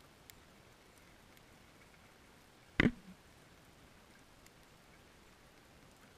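Faint steady underwater hiss with a few light ticks, and one sharp knock a little under three seconds in.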